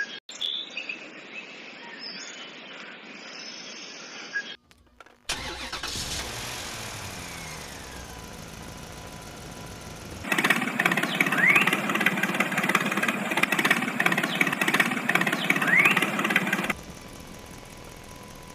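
Engine sound of a tractor, running in several stretches that start and stop abruptly, loudest and busiest through the middle stretch.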